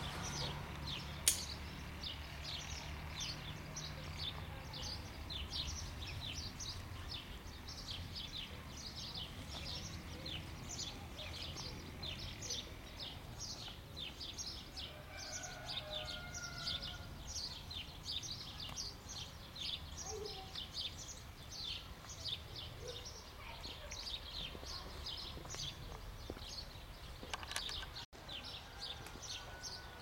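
Small songbirds chirping continuously, a dense run of short high chirps several a second. A low hum sits under it for the first few seconds, and a single sharp click comes just over a second in.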